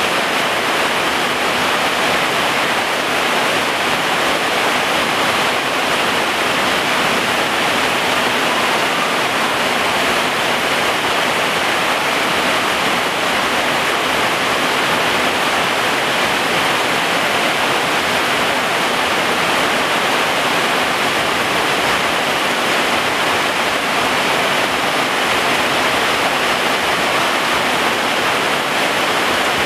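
Rain falling steadily on garden plants and ground: a dense, even hiss that does not change.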